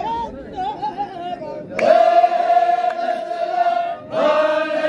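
Zikri chogan singing. A lead singer's ornamented solo line gives way, about two seconds in, to the men's chorus answering together on a long held note. The chorus breaks off briefly and comes back in on another held note near the end.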